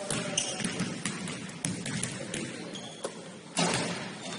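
Basketball game in a gym: sneakers squeaking briefly on the court floor among scattered knocks and ball bounces, with a louder thud about three and a half seconds in.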